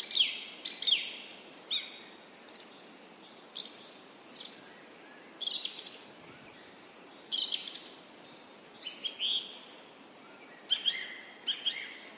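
Birds chirping: clusters of short high chirps and quick downward-sliding whistles, repeating every second or so.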